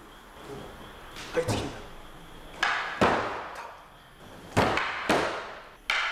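Wooden practice swords (bokken) striking each other: about half a dozen sharp wooden knocks, some in quick pairs, each with a short echo off the hall.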